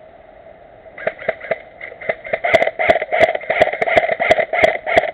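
Airsoft gun firing a rapid string of single shots, about three to four a second, starting about a second in.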